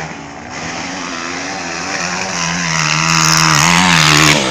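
Dirt bike engine revving, growing louder and higher-pitched over the last couple of seconds, then dropping off abruptly near the end.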